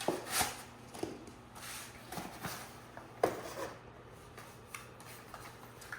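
Packed accessories being handled and lifted out of a portable electric car fridge: rustling and a few scattered light clicks and knocks, the sharpest about three seconds in.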